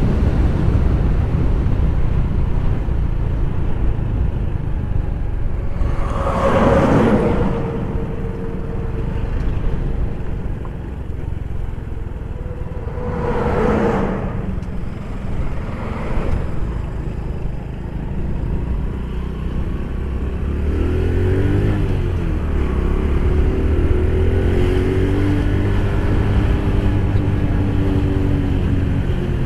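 Riding sound of a Honda Pop 110 motorcycle: wind and road rush with the small single-cylinder four-stroke engine running underneath. Large trucks go past with a loud whoosh about 7 seconds in and again about 14 seconds in. In the second half the bike slows and its engine comes through more clearly, its pitch rising and falling with the throttle.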